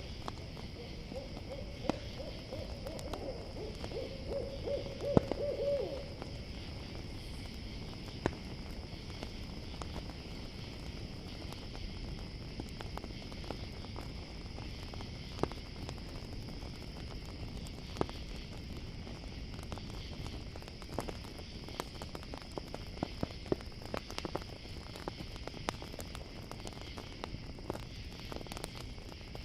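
An owl calls in a quavering run of hoots for about five seconds near the start, over a steady chorus of crickets. Sharp crackles and pops of a campfire come throughout, the loudest about five seconds in.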